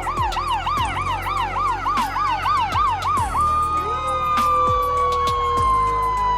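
Fire truck electronic sirens: one yelps rapidly, about three rises a second, then switches about three seconds in to a long steady tone that slowly falls in pitch, while other sirens cycle over it. A steady low engine rumble runs beneath.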